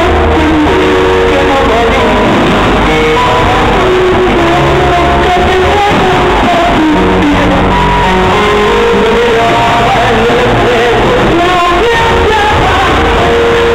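Loud rock music with singing and guitar, the soundtrack of a pyromusical fireworks display.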